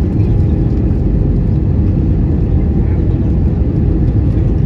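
Steady low rumble inside the cabin of an Airbus A320 on descent: air rushing past the airframe together with engine noise, with flaps and spoilers extended.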